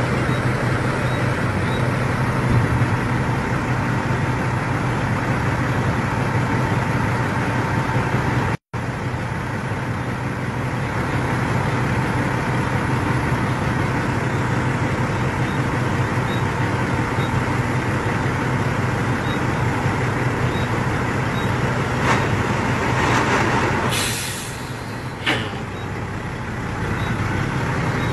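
Dump truck's diesel engine running steadily, with a hiss about three-quarters of the way through and a short click just after. The sound drops out for an instant about a third of the way in.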